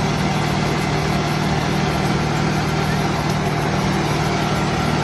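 Concrete mixer truck's engine running steadily with its drum turning, while it pours concrete down the chute.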